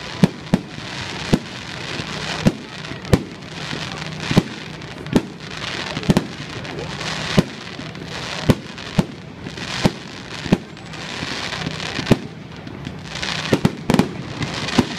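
Fireworks display: aerial shells bursting with sharp bangs at irregular intervals, about one a second, over a steady crackle from the burning stars between the bangs.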